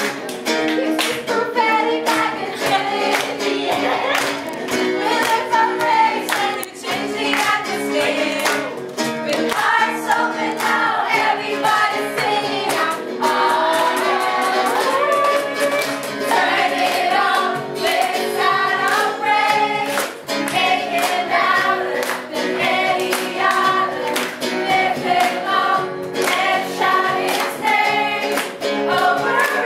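Upbeat worship song with group singing over a steady, regular beat.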